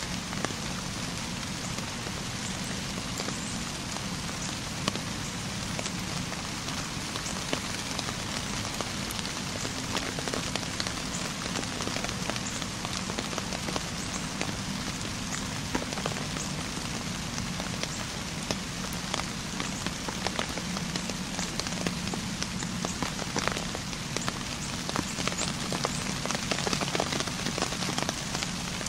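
Steady rainfall: an even hiss of rain with many scattered, sharp drop ticks.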